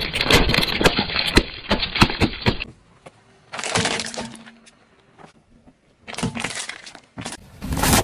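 Plastic bottles and packaging crushed under a slowly rolling car tyre: a fast run of cracks and pops for the first two and a half seconds, then shorter bursts of crunching around four seconds and again from about six seconds in.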